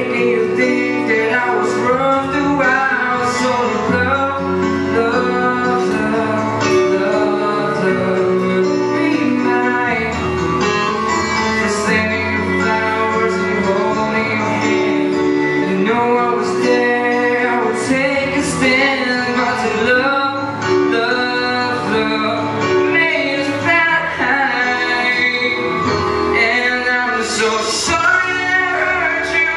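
Pop ballad music with guitar.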